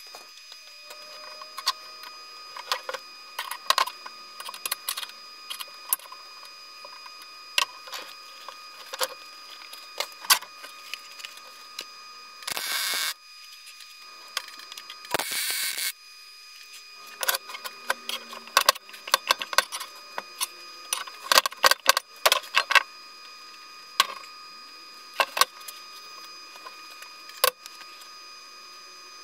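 Metal clicking and clattering as a nut and tools are handled on a steel welding bench beside a car's front subframe, with two hissing bursts of about a second each midway, like short tack welds. A faint steady high tone runs underneath.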